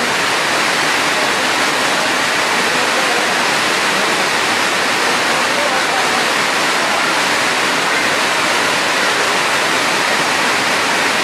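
A steady, loud rushing hiss spread evenly from low to high pitches, without any change.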